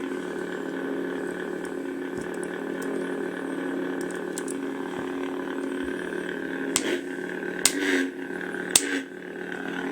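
Lightsaber soundboard (Crystal Shard V1) playing a Lego-saber sound font through a tiny speaker: a steady electric hum, then three sharp clash hits about a second apart near the end, each setting off the blade's flash on clash.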